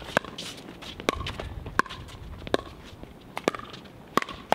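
Pickleball rally: sharp pops of paddles striking a hollow plastic pickleball, about seven hits spaced roughly every half to one second.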